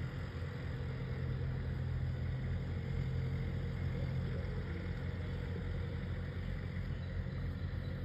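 Steady low rumble with a faint constant hum above it and no distinct calls.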